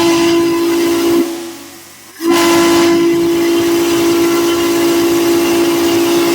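Steam whistle blown: a short blast, a break of about a second, then a long steady blast on the same tone, with a hiss of steam as each blast opens.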